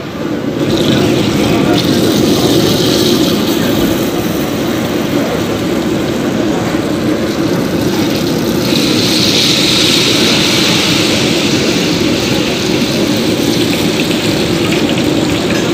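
Thin batter dripping through a perforated ladle into hot oil and sizzling, with the hiss swelling about nine seconds in. A steady low rumble runs underneath.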